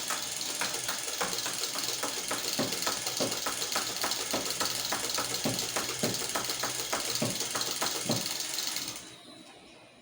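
Adventure Force V-Twin belt-fed motorized dart blaster firing on full auto: its motors run steadily with a quick run of sharp clicks as the belt feeds darts through. The firing stops about a second before the end and the motors wind down.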